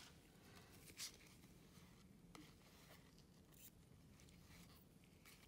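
Near silence with faint, brief rustles and clicks of trading cards being slid and flipped through by gloved hands. The slightly louder one comes about a second in.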